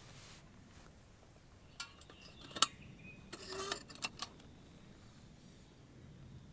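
Small metal items being handled: a few sharp clinks, one loud one about two and a half seconds in, and a brief jangling rattle just after.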